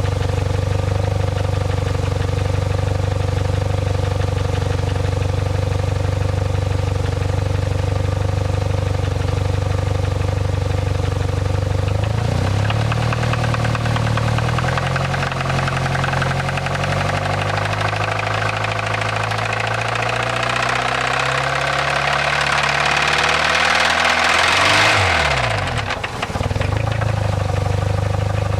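2007 Saab 9-3 engine idling steadily, then revved: the pitch steps up about twelve seconds in and climbs gradually, then falls quickly back to idle about 25 seconds in. Through it runs the knocking noise that the owner takes for engine knock or timing noise.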